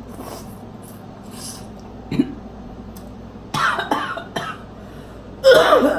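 A woman coughing, with two hard coughs about three and a half and five and a half seconds in, the second the loudest, and smaller breathy sounds before them. The coughing is brought on by the heat of the spicy food she is eating.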